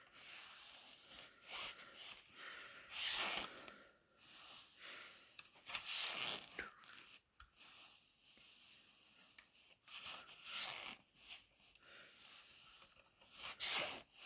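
A person breathing softly close to the microphone, a hissy breath every few seconds.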